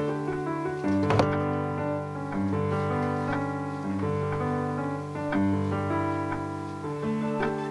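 Background music: a gentle piano piece playing chords and a melody.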